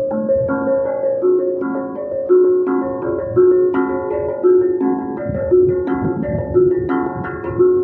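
Music: a steady, repeating melody of struck, ringing pitched notes in the manner of a mallet instrument such as a vibraphone or marimba.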